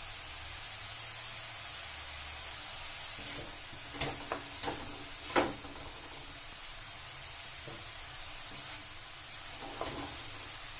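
Grated carrots sizzling in ghee in a kadhai, a steady hiss as they are roasted to cook off their water. A wooden spatula clicks and scrapes against the pan a few times about four to five and a half seconds in, and again near the end.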